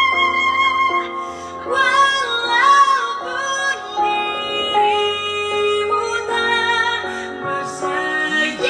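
A woman singing a song over instrumental backing. Her voice comes in about a second and a half in, after a few held instrumental notes.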